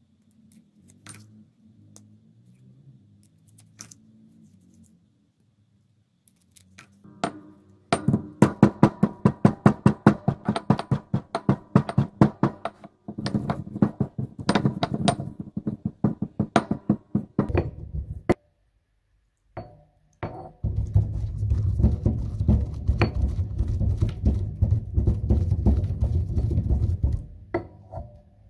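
Marble pestle pounding and grinding broken oil pastel crayon pieces in a marble mortar: quick knocks about four a second in runs, then a denser stretch of pounding and grinding in the second half. Quiet handling of the crayons comes first.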